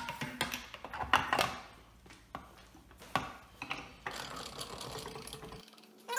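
LEM vertical hand-cranked sausage stuffer being handled: sharp metal clicks and knocks as its stainless canister and piston are set in place, then a short stretch of mechanical rattle from the crank gearing about four seconds in.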